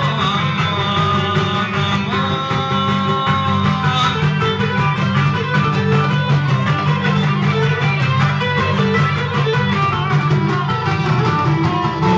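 Live Cretan folk dance music: laouto lutes strum and pluck a steady driving rhythm, with a sustained melody line playing on top.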